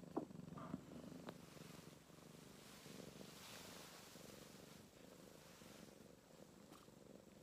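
Faint, steady purring of cats, with a few soft clicks in the first second and a half.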